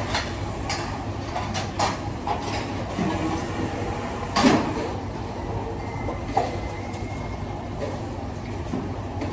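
Busy restaurant kitchen at work: a steady low rumble of equipment with scattered clatters and knocks of utensils and dishes, the loudest about four and a half seconds in. A faint high tone sounds for a couple of seconds past the middle.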